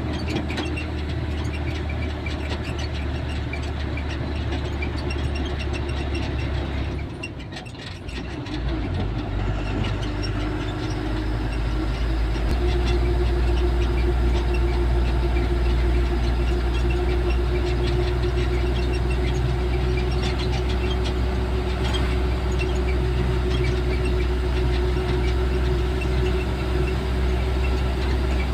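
A vehicle's engine running steadily with a low hum. It drops off briefly about seven seconds in, then picks up and runs louder from about twelve seconds on.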